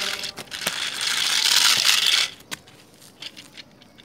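Plastic toy train locomotive scraping over gritty concrete, a harsh rasping noise for about two seconds that stops suddenly, followed by a few light clicks and taps.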